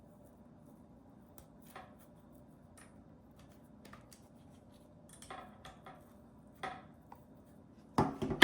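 Faint small clicks and rubbing from tweezers working a white foam spacer into the hollow end of an aftermarket rubber Roomba brush, with a louder knock near the end.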